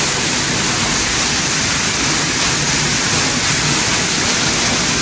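Water pouring steadily from a leaking ceiling, a constant rushing hiss of falling water.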